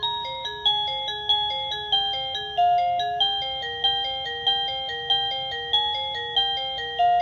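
OhmKat video doorbell chime playing one of its electronic chime tunes: a thin single-line melody, a new note about every 0.6 seconds, stepping down in pitch over the first few seconds, over a low two-note figure that alternates about three times a second.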